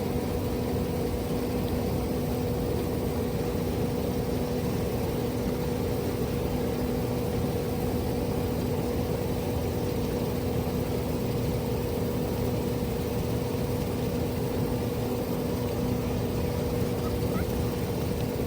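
Steady mechanical hum with a constant low pitch and a rushing noise underneath, holding even without any change in speed or load.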